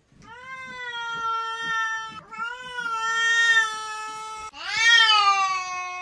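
Domestic cat giving three long, drawn-out meows one after another, the third the loudest.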